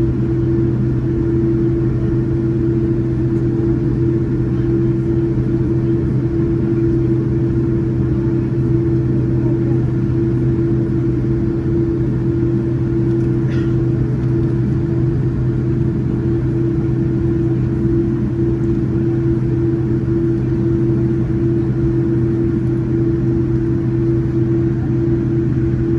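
Boeing 787-9's GEnx engines and airframe heard inside the passenger cabin as a steady, unchanging drone: a low hum carrying two constant tones. A faint single tick about halfway through.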